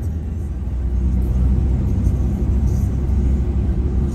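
Steady low rumble of engine and road noise heard from inside a moving road vehicle's cabin as it drives along.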